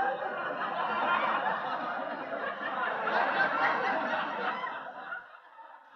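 A group of young men laughing and snickering together, with some mixed chatter; the laughter dies down about five seconds in.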